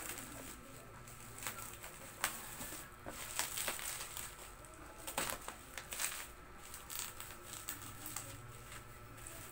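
Scissors cutting open a parcel's black plastic wrapping: irregular crinkling and rustling of the plastic with sharp crackles and snips.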